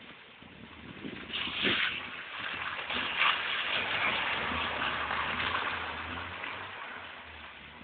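BMW E30 318is doing donuts on flooded pavement: the spinning tyres throw up water with a rushing hiss over the car's four-cylinder engine running under load. The hiss builds about a second in, stays loud for a few seconds, then fades.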